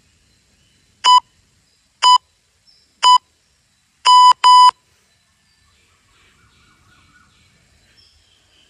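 Interval-timer countdown beeps: three short electronic beeps a second apart, then two longer beeps in quick succession about four seconds in, all at the same pitch. They signal the start of a one-minute work interval.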